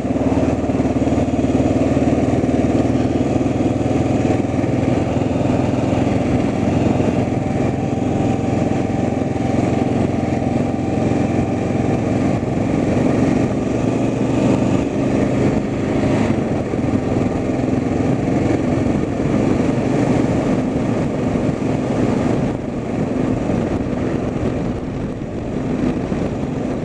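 A motor vehicle's engine running steadily, with its note shifting about halfway through.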